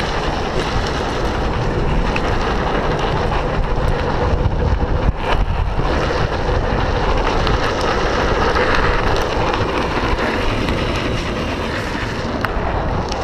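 Steady wind noise on the microphone over the rolling road noise of a drift trike's wheels on pavement during a ride.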